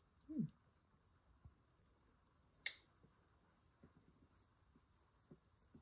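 Near silence, broken by a sharp tap about two and a half seconds in and a few faint ticks later: a finger tapping the tablet's touchscreen in its rugged case. Just after the start there is a brief low sound that falls in pitch.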